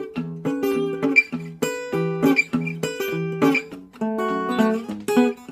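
Acoustic guitar fingerpicked with a thumbpick: steady bass notes about twice a second under picked melody notes, a country-blues guitar intro.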